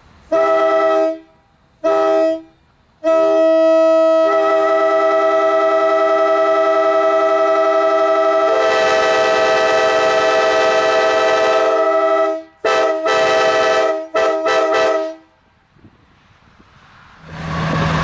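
Nathan K5LA five-chime locomotive air horn sounding a steady chord: two short blasts, one long blast of about nine seconds, then two more short blasts.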